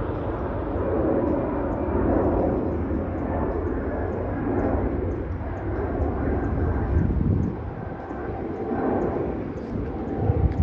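Steady jet engine noise of a twin-engine Boeing 757 airliner on departure, a rumbling roar that swells and eases slightly as it climbs out.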